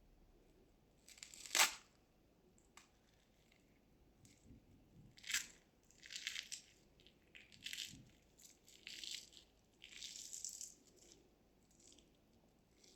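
Small handling sounds: one sharp knock, then a run of short rustling or scraping bursts, several a second apart.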